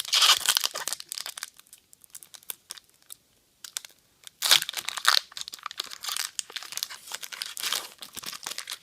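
Foil wrapper of a Pokémon trading-card booster pack being crinkled and torn open: a loud crackling burst at the start, a quieter stretch of a few seconds, then a further run of crinkling.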